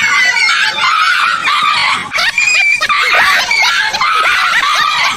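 Dogs barking and yelping in alarm at a life-size toy tiger, a rapid string of short, high cries.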